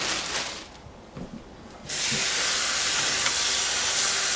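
A brief rustle of a plastic produce bag. About two seconds in, a kitchen tap turns on and water runs steadily, splashing onto salad greens in a plastic salad-spinner basket.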